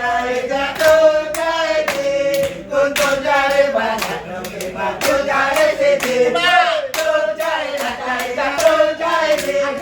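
Music: a held, wavering melody line over a steady beat of about two sharp strikes a second.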